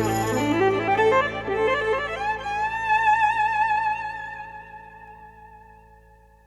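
Closing bars of a country song: a final chord rings on while a lead instrument climbs in steps to a long held note with vibrato, and everything fades out.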